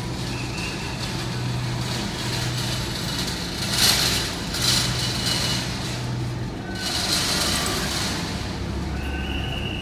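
Shuttle van driving: steady engine hum and road noise inside the cabin, with three brief louder whooshes in the middle.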